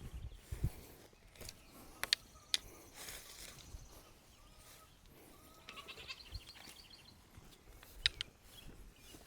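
Nigerian dwarf goats bleating faintly, with a few sharp clicks and taps.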